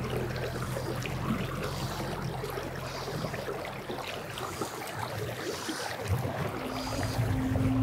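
Steady outdoor rushing noise, with soft background music fading out in the first second or two and coming back in near the end.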